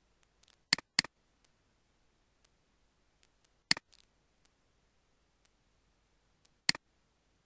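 Computer mouse button clicking: a quick double click about a second in, then a single click near the middle and another near the end.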